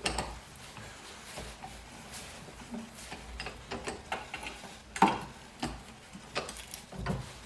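Scattered metallic clicks and knocks of tools and parts being handled as a removed belt tensioner is clamped to be taken apart. The sharpest knocks come right at the start and about five seconds in.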